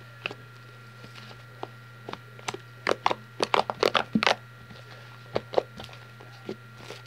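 Fluffy shaving-cream slime being kneaded and squeezed by hand, giving irregular sticky clicks and pops, thickest from about three to four and a half seconds in.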